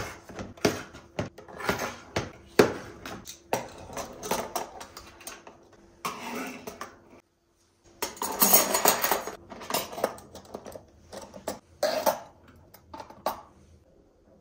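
Metal spoons and knives clattering as they are set into a plastic drawer organizer: a string of sharp clicks and clacks, with a denser rattle about eight seconds in.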